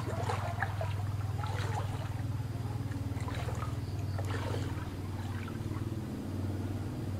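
Hands splashing and sloshing in shallow creek water in irregular bursts, over a steady low hum.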